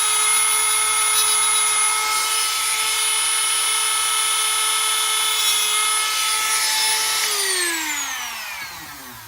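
Dremel rotary tool running at a steady high whine while grinding notches into the base of a toy truck. About seven seconds in it is switched off, and the whine falls in pitch and fades as the motor spins down.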